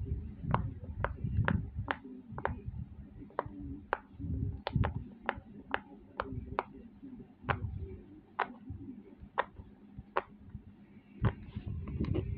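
Silicone pop-it fidget toy, its bubbles pressed one after another: about twenty short, sharp pops at uneven intervals, with dull thuds of the hand on the toy.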